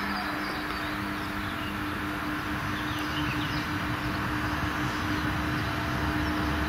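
ZSSK electric locomotive hauling a passenger train as it slowly approaches: a steady electrical hum over a low rumble that builds towards the end. Birds chirp faintly.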